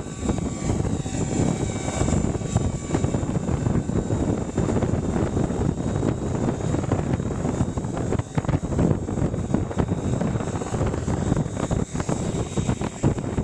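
Electric RC helicopter (Align T-REX 550E) flying, its motor and rotor giving a steady high whine, under heavy wind rumble buffeting the microphone in 15–20 mph gusts.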